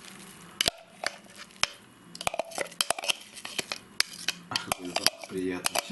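Metal spoon clinking and scraping against a glass blender bowl and an enamel bowl, irregular sharp taps, as chopped onion, garlic and dill are scraped out onto mushroom mince.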